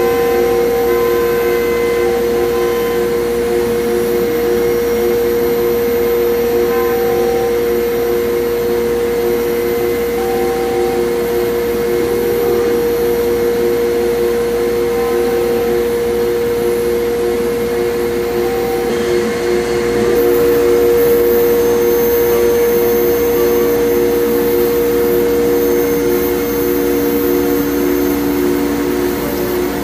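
RIGpro CNC router spindle running steadily as it cuts shaker cabinet doors: a steady pitched tone over a rushing noise. About twenty seconds in it gets a little louder and a second, lower tone joins.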